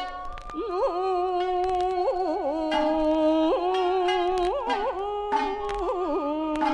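Japanese folk song (min'yō) sung by a woman holding long notes with wavering, ornamented turns, over sparse shamisen plucks.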